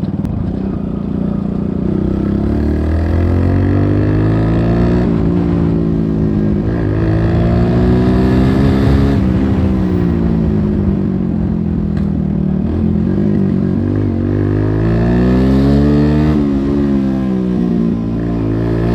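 Modified Suzuki Gixxer motorcycle engine and exhaust under way, loud, revving up and easing off several times as it pulls through the gears.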